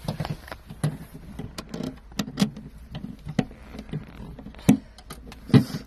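Irregular clicks and knocks of a hand-held nut driver turning and seating a 10 mm bolt, with two louder knocks near the end.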